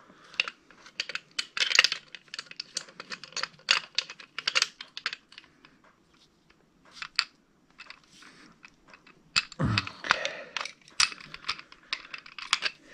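Brass hose fitting being threaded and tightened onto a metal propane regulator with an adjustable wrench: a run of small, irregular metal clicks and clinks, with a louder patch of handling noise about ten seconds in.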